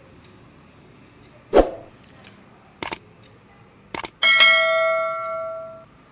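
Metal kitchen utensils knocking against a metal cooking pot: a knock about one and a half seconds in, two short clicks, then a clang about four seconds in that rings with a clear tone and fades over nearly two seconds.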